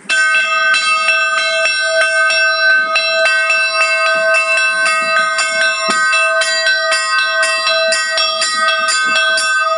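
Orthodox church bells rung in a perebor: several bells struck one after another in a quick, even run of about three strokes a second, their tones ringing on over each other. The ringing starts suddenly.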